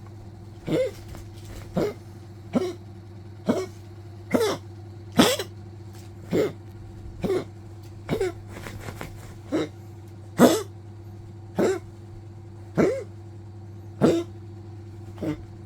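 Old poodle coughing over and over, about fifteen short hacking coughs roughly a second apart.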